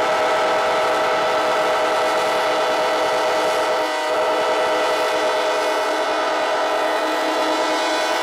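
Air horns of several locomotives sounding together in one long, loud chord of many notes, with a brief break about four seconds in where some horns drop out and come back.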